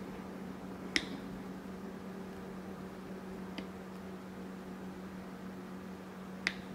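Quiet room tone with a steady low hum and faint hiss, broken by three short, sharp clicks: about a second in, midway, and near the end. The first and last clicks are the loudest.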